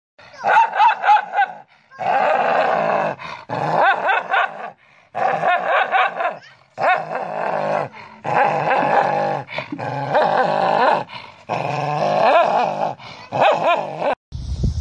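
Two dogs snarling, growling and barking at each other in a string of loud bursts with brief breaks, the pitch wavering within each burst.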